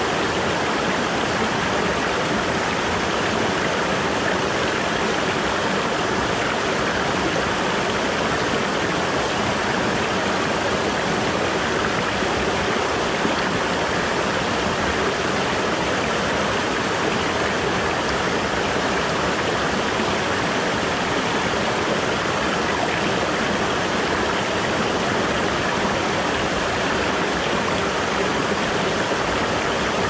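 Stream water tumbling over rocks below a small waterfall: a steady, even rush of splashing water.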